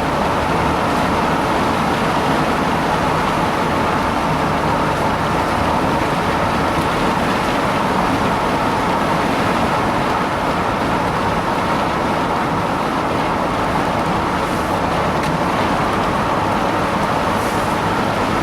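A boat's motor running steadily under way, a constant drone with no change in speed.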